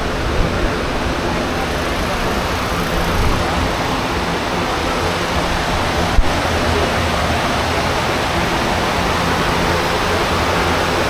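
Steady rushing air noise with a fluctuating low rumble, with one short knock about six seconds in.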